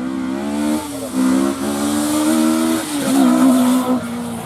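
Rally car engine running hard, its pitch stepping down and climbing again several times as the throttle comes off and on, with a steady hiss over it.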